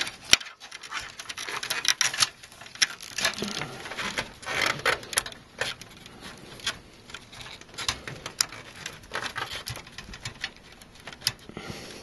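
Irregular clicks, taps and rustling scrapes as gloved hands work a SATA cable and its plastic connector into place on a hard disk in a PC drive cage, with a sharp click right at the start.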